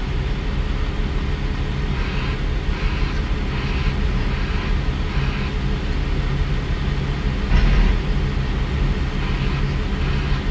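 Heavy diesel wheel-loader engine running steadily, a low drone heard from inside a loader cab. There is a series of short hissing rushes in the first half and a heavy thump about seven and a half seconds in.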